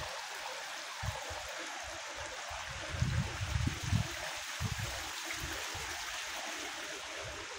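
A steady rushing hiss, with a few low bumps on the microphone about three to four seconds in.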